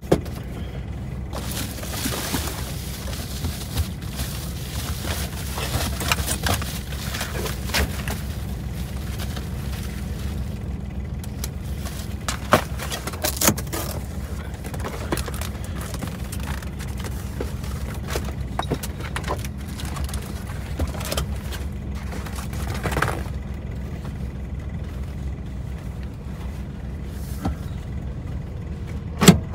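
Van engine idling, heard from inside the cab, with scattered rustles and small clicks as the driver moves about the front seat. A sharp click near the end.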